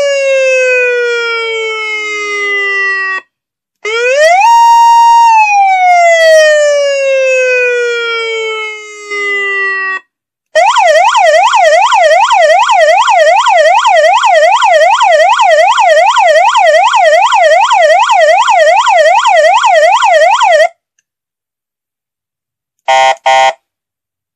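Electronic motorcycle siren sounding its tones in turn. First come two wails, each rising quickly and falling slowly, the second held at its top for about a second before it falls. Then about ten seconds of fast up-and-down yelp, which stops suddenly, with two short blips near the end.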